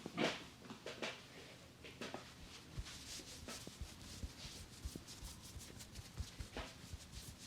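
Hands rubbing and massaging a person's scalp and hair: soft, irregular rubbing strokes with a few faint ticks between them.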